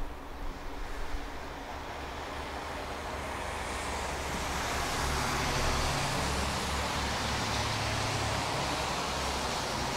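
Tram running, its low rumble and rolling noise growing louder over the first few seconds, then holding steady.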